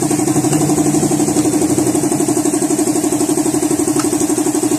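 A motor running steadily in the background, with a quick, even pulsing beat.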